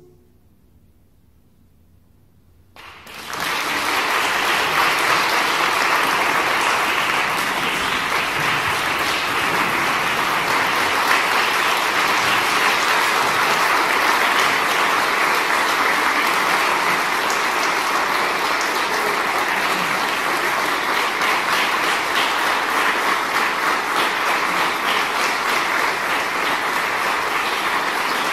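A brief hush as the choir's final chord dies away, then the audience breaks into applause about three seconds in and keeps clapping steadily.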